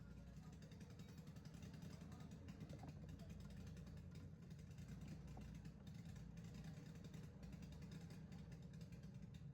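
Washing machine spin motor running, a faint steady low hum with a few light ticks.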